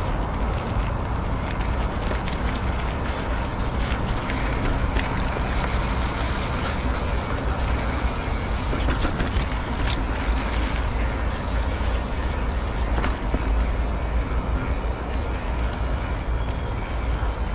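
Steady wind rush on the microphone and road rumble while riding a bicycle, with a few faint clicks and rattles here and there.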